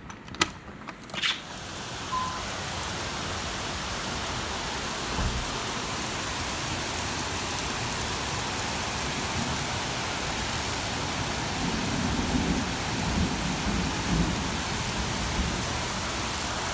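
Torrential rain pouring steadily in a heavy downpour, coming up after two sharp clicks in the first second or so, with a few low rumbles a bit over ten seconds in.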